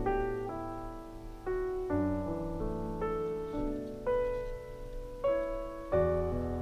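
Background piano music: a slow, gentle melody of sustained notes and chords, a new note struck about every half second to second.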